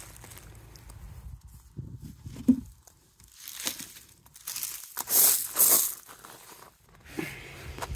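Rustling and crinkling in irregular bursts, loudest about five to six seconds in, as hands sort through wet compost tipped out of a potato container, searching for seed potatoes.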